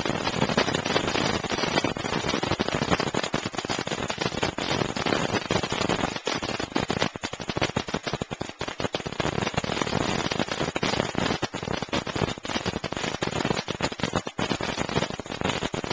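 Night Treasure firework going off in a dense, unbroken run of rapid cracks and bangs, like rapid fire.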